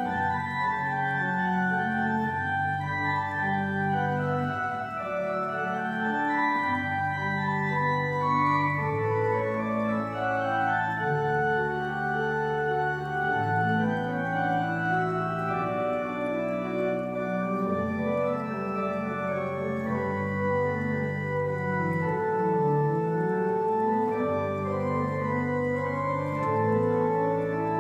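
Organ music played from a four-manual console: sustained chords moving from note to note, over a deep pedal bass that drops out and returns several times.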